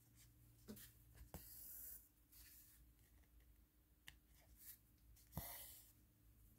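Faint handwork on a craft canvas: light scratching and rustling with a few small clicks and taps, the loudest rustle near the end.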